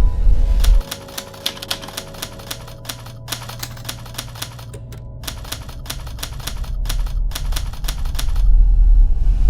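Typewriter keys clacking in quick runs, with two brief pauses. Under it is a low musical drone that cuts out about a second in and swells back near the end.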